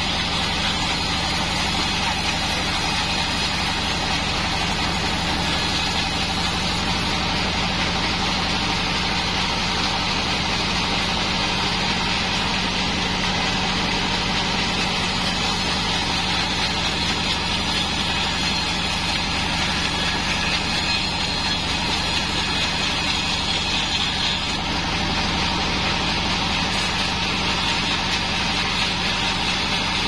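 Vertical bandsaw mill running steadily as a thin Bayur log is fed through the blade, a continuous machine hum under the hiss of the cut.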